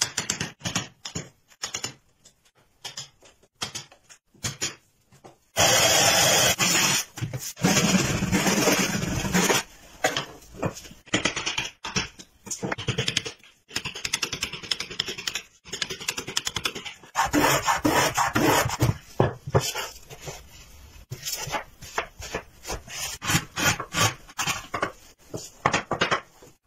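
Hand chisel being struck with a mallet to chop into a wooden board: many sharp knocks at an uneven pace. There are two spells of denser, continuous noise, one about six seconds in and one around eighteen seconds.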